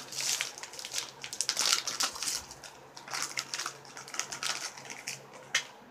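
A shiny blind-bag packet being torn open and crinkled by hand: a run of irregular crackles and rustles, densest in the first couple of seconds and thinning out after, with one sharp crackle near the end.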